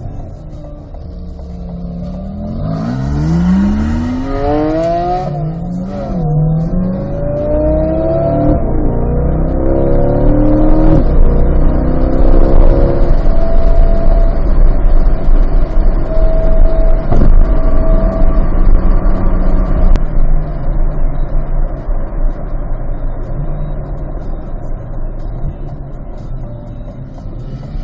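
Mid-engined sports car under hard acceleration: the engine revs climb steeply from about two seconds in, then drop with each of several quick upshifts. For the second half it runs at a steady pitch.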